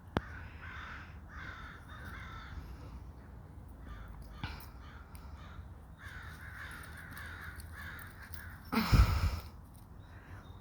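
Crows cawing in repeated harsh runs, the alarm calls of crows mobbing a large bird that is raiding their nest. A sharp click right at the start and a loud, brief rush of noise about nine seconds in.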